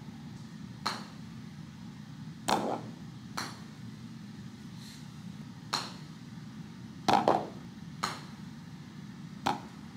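A putter striking golf balls on carpet: about seven short, sharp clicks spaced a second or so apart, the loudest a quick pair about seven seconds in.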